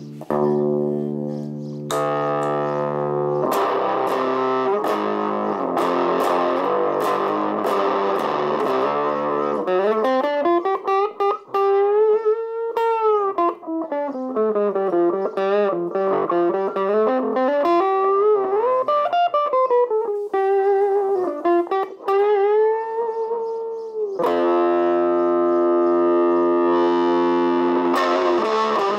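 Electric guitar, a Gibson Les Paul, played through a Tone Bender-style fuzz pedal into a small ECL82 valve amplifier, giving a fuzzy tone. Sustained chords open the passage. From about ten seconds in comes a single-note lead line with wide, sweeping pitch bends, and held chords return near the end.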